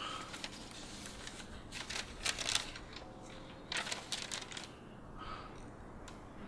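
Paper rustling and crackling as a letter is unfolded and handled by hand, in two main bursts about two seconds in and again near four seconds.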